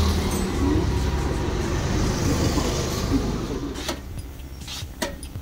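A motor vehicle running. Its sound fades away about four seconds in, leaving a few sharp clicks.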